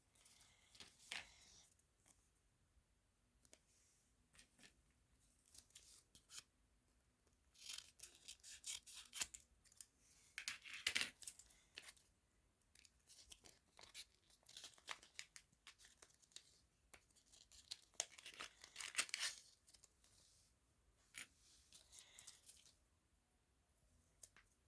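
Faint, intermittent bursts of crisp crackling and tearing-like handling noise, in short clusters of rapid clicks and rasps, with the busiest stretches about a third and three quarters of the way through.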